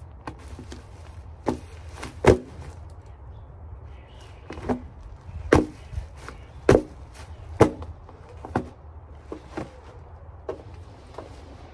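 Cardboard boxes being stepped on and crushed underfoot in mules: irregular crunches and thumps. The loudest comes about two seconds in, with a cluster of heavy stomps between five and eight seconds.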